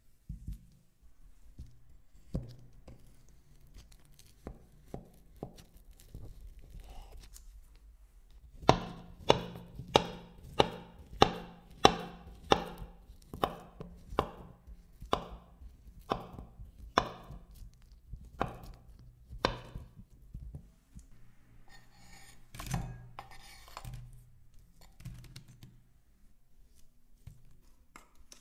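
Kitchen knife slicing a peeled banana into rounds on a wooden cutting board: a run of about twenty sharp knocks of the blade on the wood, several a second at first, then slowing. Before it come soft handling sounds of the banana being peeled.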